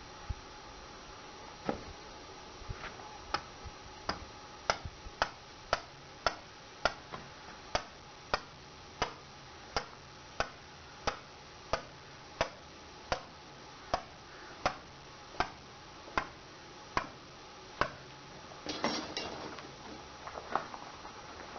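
A long series of sharp knocks at a steady pace, about two a second at first and slowly spreading to a little over one a second, followed near the end by a short, rougher and noisier burst.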